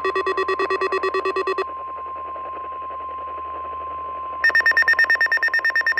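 NOAA Weather Radio 1050 Hz warning alarm tone, a steady single tone through an Eton FR370 weather radio's speaker. Rapid electronic beeping, about ten a second, sounds over it at the start, stops after about a second and a half, and comes back louder and higher-pitched for the last second and a half.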